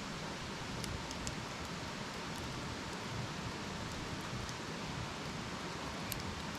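Wood campfire burning: a steady hiss with a few faint, sharp crackles scattered through it, the clearest one near the end.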